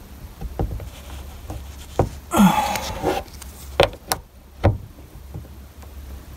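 A thin tool prying and scraping at the edge of a car's plastic dome-light lens and trim. It makes several sharp plastic clicks and a short scraping rasp about two and a half seconds in. The old lens plastic has gone rigid and is stuck in its housing.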